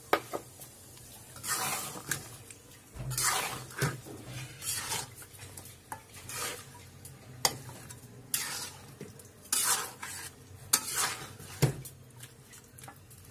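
A metal spatula stirring chicken pieces through thick gravy in a metal pan. It scrapes repeatedly across the pan, and now and then gives a sharp clink against it.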